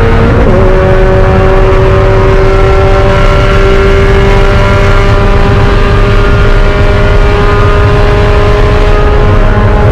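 Spec Miata's four-cylinder engine heard from inside the race car. Its note steps down sharply about half a second in as it shifts up, then climbs slowly and steadily as the car accelerates, over constant road and wind rumble.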